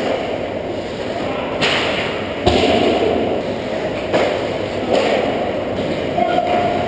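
Ice hockey play close to the goal: skates scraping across the ice, with about five sharp knocks of sticks and puck, echoing in an indoor rink.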